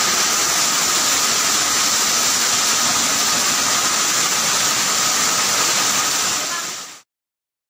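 Heavy hail and rain pouring down in a steady, dense hiss, which fades out and stops about seven seconds in.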